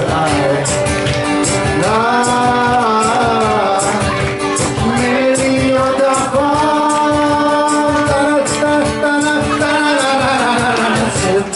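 Two men singing a Mandarin pop song live into handheld microphones, holding two long notes, about two and six seconds in, over a strummed acoustic guitar. Light percussion keeps a steady beat underneath.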